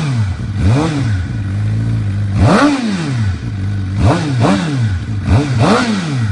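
Suzuki motorcycle with a Yoshimura aftermarket exhaust, idling and being blipped on the throttle about six times, each rev rising and dropping quickly back to idle, the biggest about two and a half seconds in.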